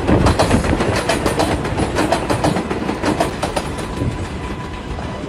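New York City subway train pulling into a station, its wheels clacking rapidly over the rail joints and easing off as it slows. A faint steady squeal joins in during the second half.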